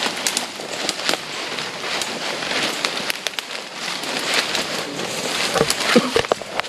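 Footsteps crunching through dry leaf litter and twigs on a forest trail, a dense crackle of small snaps, with a few sharper cracks near the end.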